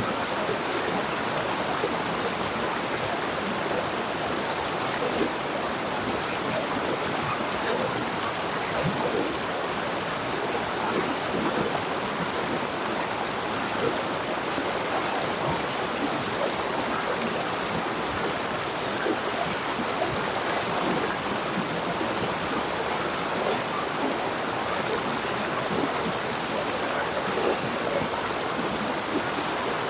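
River water flowing and splashing over stones in a steady, even rush.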